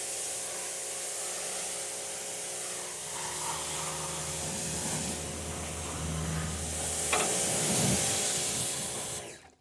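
Water spraying in a steady hiss, rinsing degreaser off a painted steel tractor fender pan, shut off abruptly near the end.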